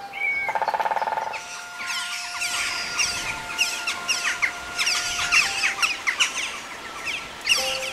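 Many small songbirds chirping, their short high calls crowding together thickly from about a second and a half in. A brief rapid rattle comes about half a second in, and long held notes of soft music lie underneath.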